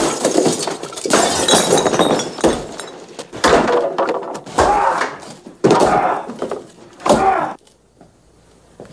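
A man smashing and kicking things in a basement: a run of about seven loud crashes, thuds and breaking noises roughly a second apart, going quiet near the end.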